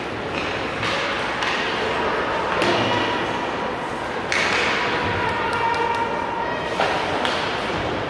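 Game sounds echoing in a large indoor arena: scattered sharp thuds and knocks of play, about half a dozen, over a constant background of voices.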